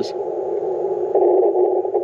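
Icom IC-705 transceiver's receiver hiss on an empty stretch of band, squeezed into a narrow slice of pitch by its CW filter, with no Morse tones. The hiss gets louder about a second in.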